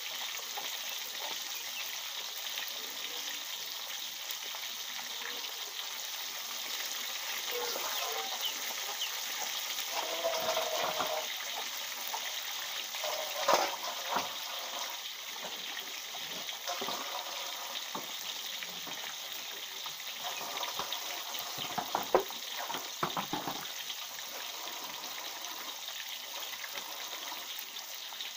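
Sea bass pieces deep-frying in hot oil in a wok, a steady sizzle, with a few short clicks and knocks around the middle.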